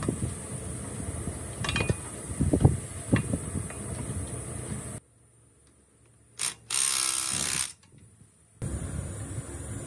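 Steel frame parts clanking and knocking a few times as they are fitted onto a small engine. Later a cordless drill runs for about a second, driving a frame bolt, after a short blip.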